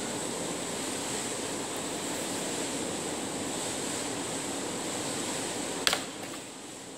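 Steady rushing background noise, with one sharp click or knock about six seconds in, after which the noise briefly drops.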